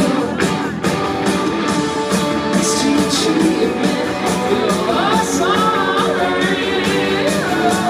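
Live rock band playing loudly in an arena: electric guitar and drums, with a voice singing over them.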